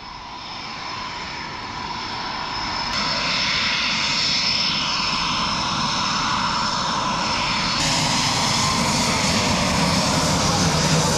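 Eurofighter Typhoon's twin jet engines: a loud rushing roar with a high whine on top, building over the first few seconds and then holding steady and loud.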